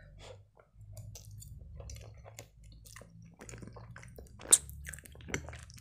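Close-up wet chewing and lip smacking of a mouthful of penne in creamy Alfredo sauce, with many short squishy clicks, and one sharper click about four and a half seconds in.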